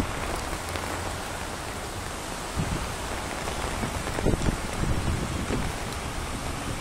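Steady rain falling on a wet paved road and its puddles, a constant even hiss, with a few louder low thumps about halfway through.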